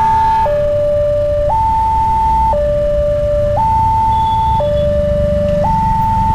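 Railway level-crossing warning siren sounding a two-tone hi-lo alarm, a higher and a lower tone alternating about once a second, with a low rumble underneath.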